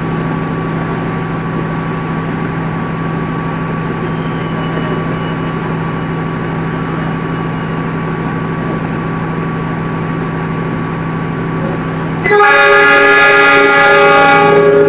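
Standing diesel passenger train idling with a steady drone. Near the end, the locomotive's horn gives one loud blast of about two and a half seconds, signalling departure.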